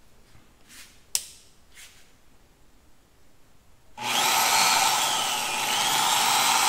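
A sharp click about a second in, then about four seconds in a 710 W mini bench drill press switches on and its motor and chuck run with a steady high whine on a low speed setting, the pitch dipping slightly and coming back up.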